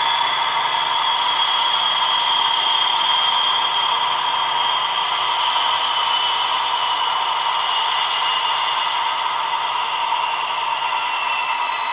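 Recorded engine sound of a DB class 218 diesel locomotive with its TB11 V12 engine, played through a small H0 model loco speaker with a grainy hiss. The engine's whine slowly falls in pitch as it steps back down through the power notches.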